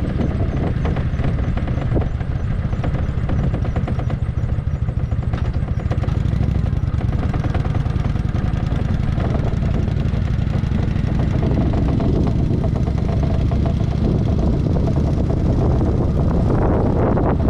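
Kawasaki Vulcan 900's V-twin engine running steadily as the motorcycle is ridden at low speed, with wind noise on the microphone building near the end.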